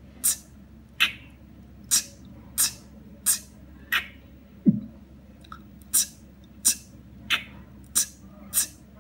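Beatboxer performing the pattern 'ttk tttk nd' slowly: seven crisp mouth-made 't' and 'k' clicks, about one every two-thirds of a second, then a low 'nd' bass sound about halfway through, after which the pattern starts again.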